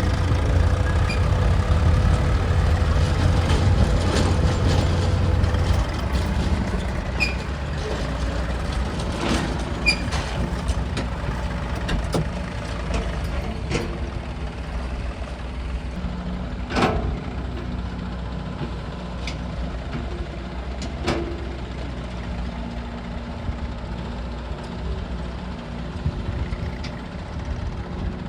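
Diesel engines of an excavator and tractors running steadily, louder for the first six seconds and then settling lower. Sharp metallic clanks come every few seconds, the loudest a little past halfway.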